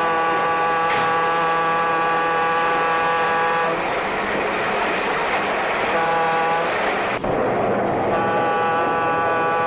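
Diesel freight locomotive's air horn sounding a long blast, a short one, then another long one, over the steady rumble of the train getting underway.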